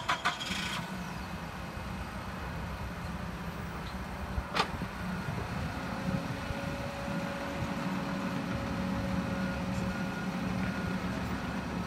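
Forklift engine running steadily, with a steady hydraulic whine from about six seconds in as the mast raises a work platform on its forks. A single sharp click about four and a half seconds in.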